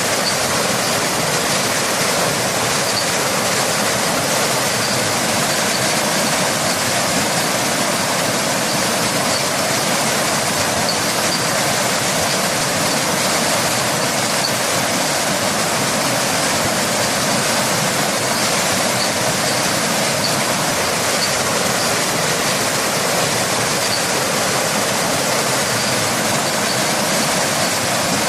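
Waterfall and rain: a steady, even rush of falling water with no breaks.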